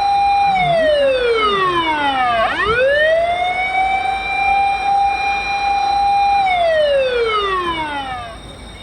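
Fire engine siren wailing: a steady high tone slides down, sweeps back up and holds, then slides down again and stops near the end.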